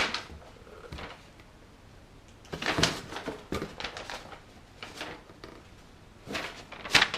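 Packaging being handled during an unboxing: scattered rustles and light knocks of paper and plastic as items are taken out of the box.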